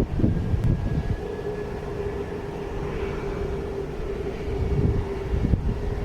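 Jet airliner engines with a steady whine, over low gusty rumbling from wind on the microphone.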